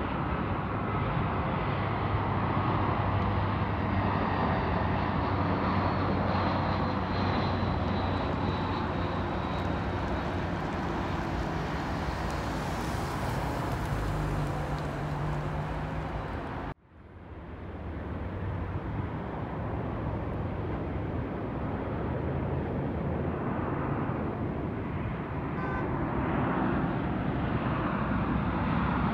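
Jet airliners on final approach: their engines give a steady roar with a high whine that slowly falls in pitch in the first part. The sound cuts off abruptly about 17 s in, and another airliner's engine noise builds in its place.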